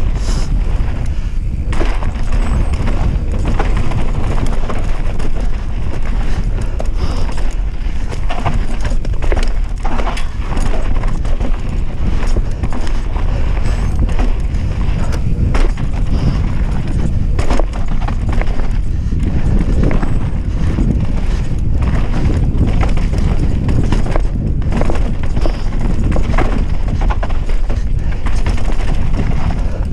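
Enduro mountain bike running fast downhill over dirt and rocky trail: continuous rattling and irregular knocks of the frame, chain and suspension over bumps, with tyre noise on the dirt. Heavy wind buffeting on the onboard camera's microphone.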